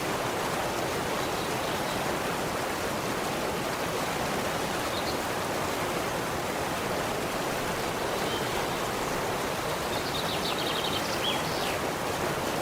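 Forest stream water running steadily, with a faint bird trill and a few chirps near the end.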